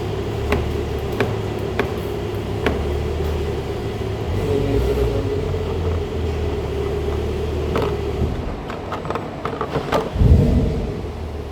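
A steady low mechanical hum with sharp clicks: four spaced about half a second apart in the first three seconds, then a quick cluster, and a heavier low knock about ten seconds in.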